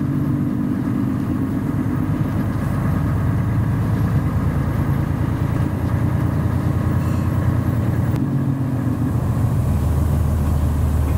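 Airport ramp bus's diesel engine running as the bus drives across the apron, heard from inside the cabin. A deeper low hum joins the engine near the end.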